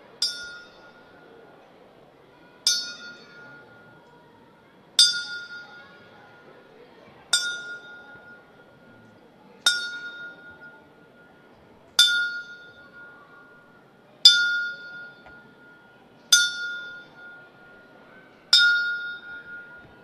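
Boxing ring bell struck slowly again and again, nine single strokes a little over two seconds apart, each ringing out and fading before the next: the ten-bell salute, the tribute tolled in boxing for someone who has died.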